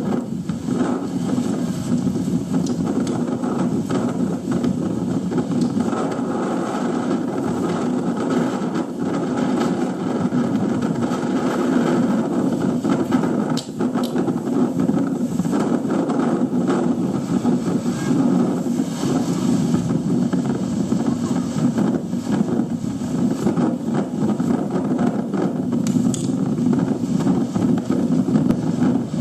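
Steady rushing noise of typhoon wind, rising and falling a little in small surges.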